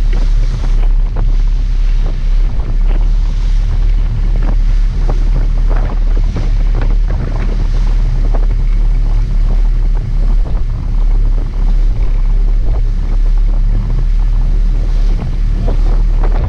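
Wind buffeting the microphone over the steady low rumble of a sportfishing boat's engines and the churning water at its stern.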